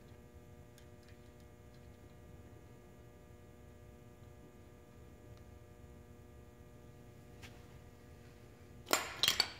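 Low steady hum with a few faint ticks as the crankshaft key is worked into the slot of the bottom timing-belt sprocket. Near the end comes a short, louder burst of metal clinking.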